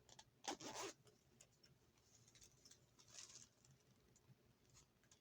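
Faint rustling and light clicks of items being handled, with the loudest rustle just under a second in and a softer one about three seconds in.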